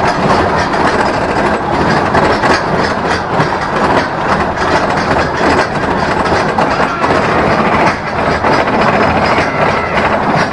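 Gemini roller coaster train rolling along its track, heard from on board as a loud, continuous clatter of wheels on rails.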